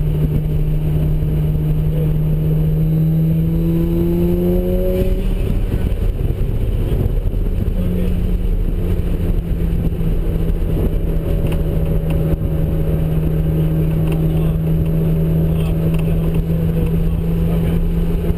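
Mazda RX-7's ported twin-turbo 13B rotary engine under load on track, running on low boost. Its pitch climbs steadily for about five seconds, drops, then holds close to steady for the rest.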